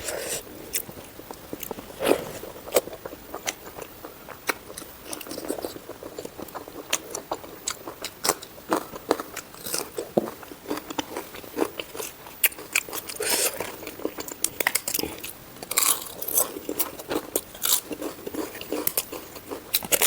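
Close-miked eating: bites and chewing with irregular sharp crunches and crackles throughout.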